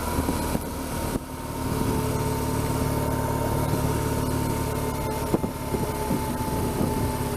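BMW R1200GS flat-twin boxer engine running at low, steady revs while the bike is ridden slowly, with a short dip in level about a second in.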